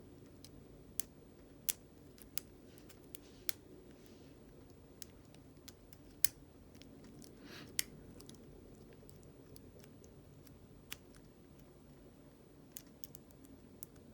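Faint, irregular metallic clicks of a lock pick and tension wrench working the pin tumblers of a Brinks Promax Security padlock, a dozen or so sharp ticks at uneven spacing. A low steady hum runs underneath.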